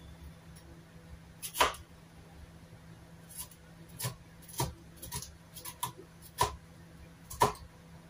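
Chef's knife chopping a yellow bell pepper on a cutting board: about nine sharp knocks of the blade striking the board at an uneven pace, the loudest about a second and a half in, over a faint low hum.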